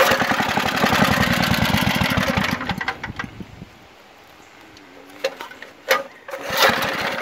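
Briggs & Stratton single-cylinder engine on a 1950s Porter Cable garden tractor, pull-started: it catches at once, runs rapidly for about two and a half seconds, then dies away, because the carburetor has to be refilled with fuel. A few short knocks follow near the end.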